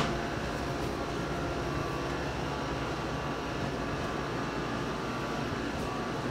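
Steady low background hum of room tone, with a few faint steady tones and no distinct impacts or voices.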